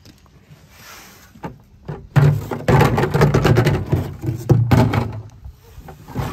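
Red plastic gas cans being handled and set down on a pickup truck's plastic bed liner: hollow knocks and scraping start about two seconds in and go on for about four seconds.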